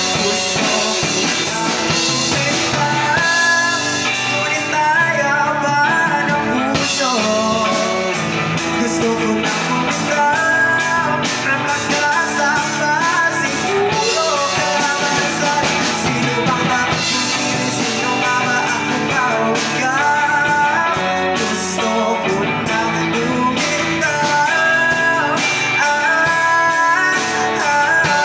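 Live band performance: a male singer's voice through a microphone, singing in Tagalog over electric guitar and a drum kit.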